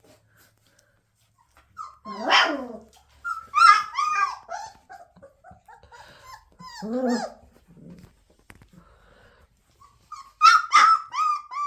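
Three-week-old puppy whining and yelping in several short bouts of high-pitched cries that bend up and down, starting about two seconds in after a quiet start.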